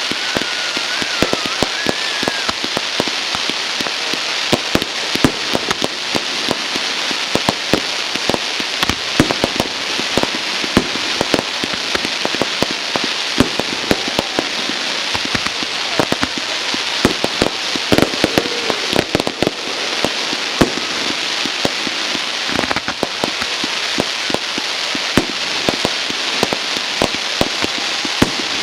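Fireworks crackling: a dense, continuous patter of small pops over a steady hiss, with louder cracks scattered throughout.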